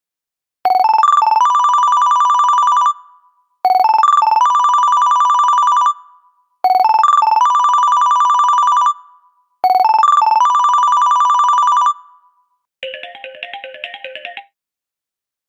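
Momo Droid 750 Android ringtone: a short run of rising notes into a rapid warbling ring, repeated four times about every three seconds. Near the end a shorter, softer, different warbling tone sounds once.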